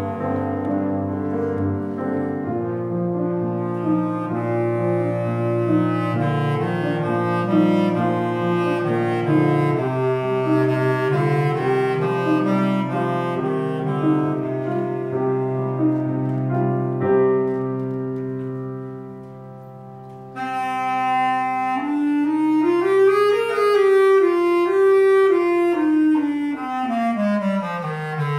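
Bass clarinet playing with Steinway grand piano accompaniment. The music dies down to a soft passage about two-thirds through, then comes back in loud with a melodic line that climbs and then falls away.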